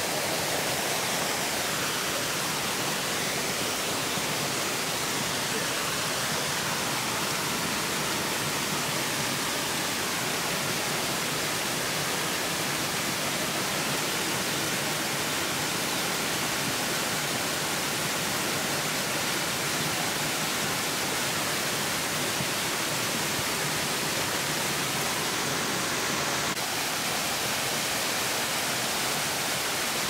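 Waterfall cascading over rocks in full rainy-season flow: a steady, even rush of water.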